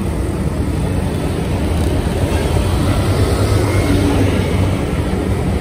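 Motorcycle running in traffic, heard from the rider's seat: a steady low rumble of engine and road noise.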